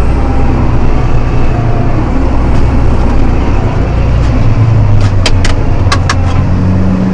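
John Deere 7280R tractor's diesel engine running steadily while plowing. Just past halfway the engine note drops and shifts, and then a quick run of about half a dozen sharp clicks sounds.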